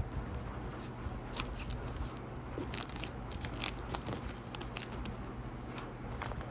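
Packaging being handled, with scattered short crackles and crinkles over a steady low hum.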